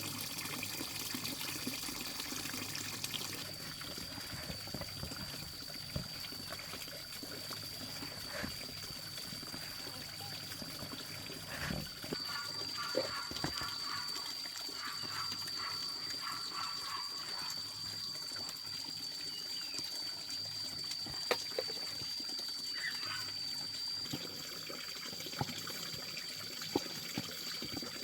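Water running and trickling steadily, with a continuous thin high-pitched tone and a few short knocks.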